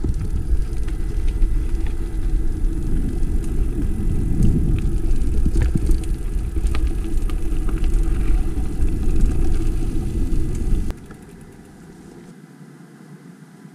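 Mountain bike rolling over a rocky trail: a heavy rumble with frequent clicks and rattles from the bike. About eleven seconds in it drops suddenly to a much quieter, even hiss.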